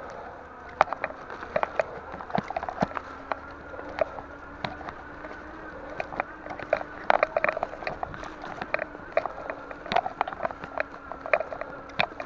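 Mountain bike rolling along a dirt single track covered in leaves and sticks: irregular clicks, knocks and rattles as the tyres and frame jolt over bumps and twigs, over a steady wavering hum.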